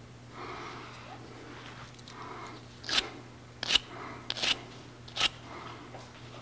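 Hand work on the air compressor's regulator fitting: four or five short, sharp scrapes or clicks in the middle stretch, roughly half a second to a second apart, over a faint steady hum.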